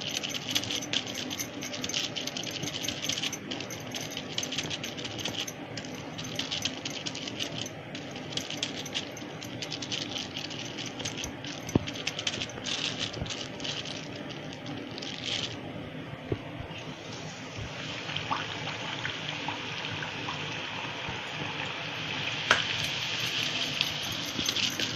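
Thin plastic sheet crinkling and rustling in quick little crackles as hands pat and press out soft pumpkin-dough puris on it. About two-thirds of the way in, the crackling gives way to a steady hiss.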